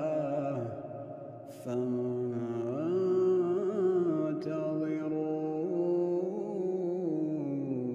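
A man's voice chanting Quran recitation in melodic tajwid style, with long drawn-out notes that bend slowly up and down. There is a short pause for breath about a second in, then one long melodic phrase.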